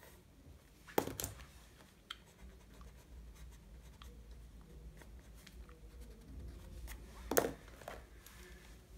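Faint scratching of drawing tools on sketchbook paper, with two sharp clicks, one about a second in and one near the end.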